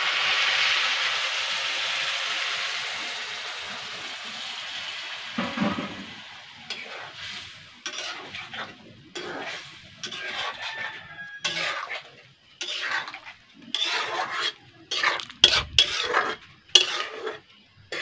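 A little water poured into a hot metal wok of frying pumpkin hisses loudly, the sizzle dying away over a few seconds. After that a metal spatula scrapes and clinks against the wok as the pumpkin is stirred, in a string of short, irregular strokes.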